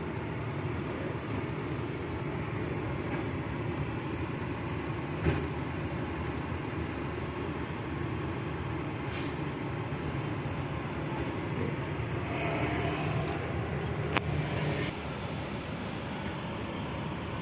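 Steady mechanical hum of an idling bus, with a brief high hiss about nine seconds in and a couple of sharp clicks.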